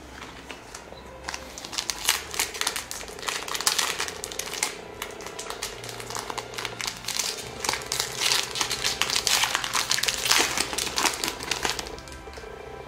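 Foil trading-card booster pack crinkling and crackling as it is handled and torn open by hand, starting about a second in and stopping shortly before the end.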